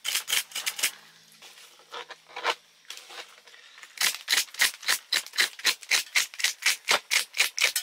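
A knife blade scraped quickly along a yellow perch's side, rasping the scales off in rapid strokes, about four to five a second. The strokes thin out for a couple of seconds about a second in, then pick up fast again.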